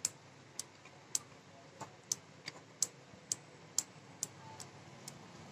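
Small slide switch of a solar LED torch being slid back and forth by hand, clicking about twice a second. The switch had jammed and, freshly oiled, is starting to work free.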